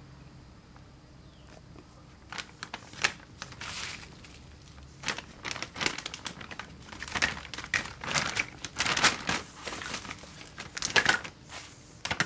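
A clear plastic bag crinkling as a hand rummages through it, with small plastic toy figures shifting inside, in irregular crackly bursts starting about two seconds in.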